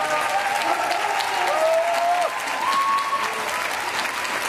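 Large audience applauding steadily, with many voices calling out and cheering over the clapping.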